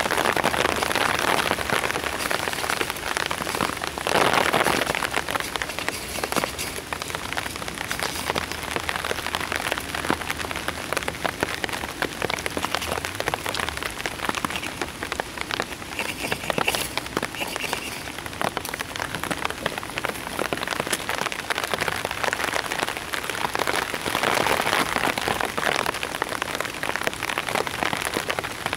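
Steady rain pattering on a survival-blanket shelter, a dense hiss of many small drop ticks that swells louder near the start, around four seconds in and again near the end.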